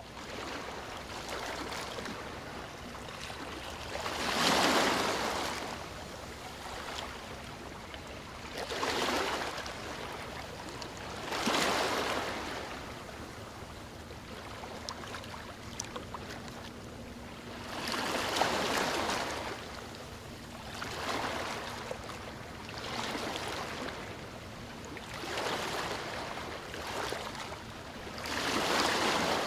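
Sea waves breaking on a shore: a steady wash of surf with a louder wave surging in and fading every few seconds.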